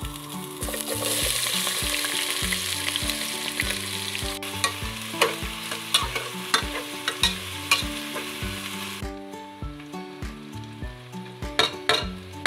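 Sliced onions sizzling in hot oil in a metal pot, stirred with a metal spoon that clicks and scrapes against the pot. The sizzle starts about half a second in and dies down around nine seconds in, with background music underneath.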